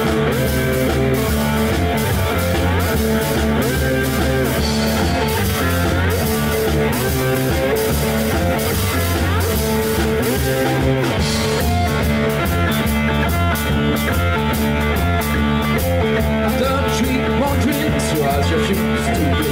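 Live rock band playing: lap steel guitar, electric bass and drum kit with cymbals, a full continuous groove.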